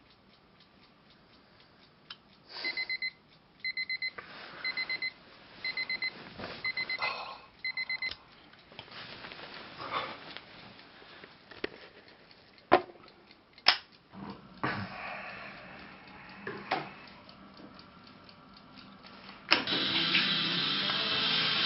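Quartz travel alarm clock beeping in quick bursts of about four beeps, roughly one burst a second, six bursts in all, then it stops. Rustling and a few sharp knocks follow, and guitar music comes in near the end.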